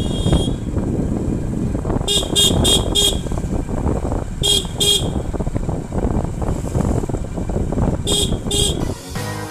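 Riding on a scooter with steady engine and road noise, and a horn giving short beeps: four quick toots about two seconds in, two more about four and a half seconds in, and two near the end. Music comes in just before the end.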